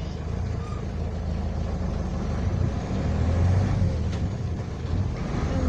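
Mercedes-Benz LO-812 bus's OM-364 LA turbo-diesel four-cylinder running steadily, gradually getting louder.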